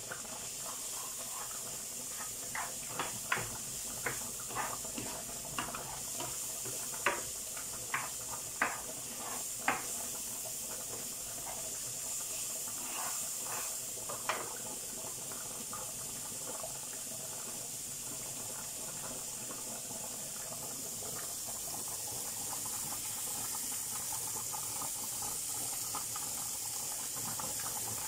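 Diced red bell pepper frying in butter in a pan, a steady sizzling hiss with scattered sharp pops, mostly in the first half, alongside a pot of lentils boiling.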